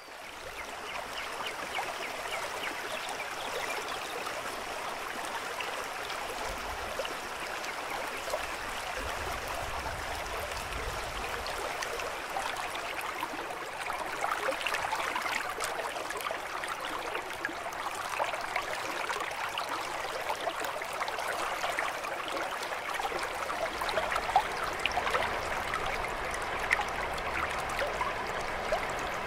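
Stream of running water babbling and trickling steadily, fading in over the first second or two.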